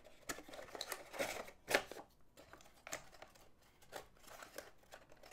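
Cardboard packaging being handled by hand on a wooden desk: soft rustling and scattered light taps, with one sharper tap a little under two seconds in.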